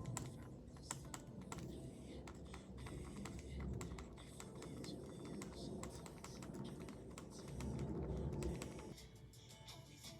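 Typing on a computer keyboard: a quiet, irregular run of key clicks, with a low rumble underneath that fades out near the end.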